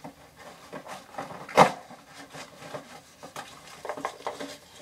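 Hands handling the contents of an RC truck's box, plastic parts and packaging: scattered light clicks and rustles, with one sharp clack about a second and a half in.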